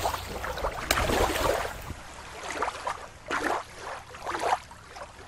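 Small waves washing and splashing at the water's edge, swelling up several times. A low rumble stops about two seconds in.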